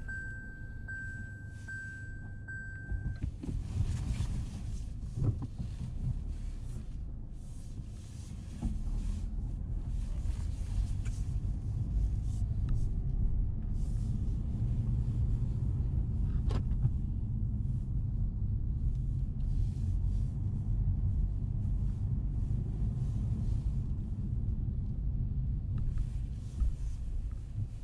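Low rumble of a car on the move, getting louder about eight seconds in.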